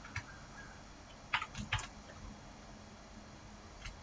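Faint keystrokes on a computer keyboard: a few scattered clicks with a quick cluster about a second and a half in.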